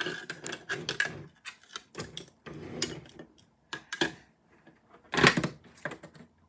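Toy fruit pieces clattering and knocking against a clear plastic toy blender jar as they are dropped in and handled: irregular clicks and taps, with a louder knock about five seconds in.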